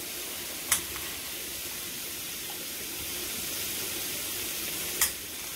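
A kitchen knife knocking twice on a plastic cutting board while dicing onion, once about a second in and again near the end, over a steady high hiss.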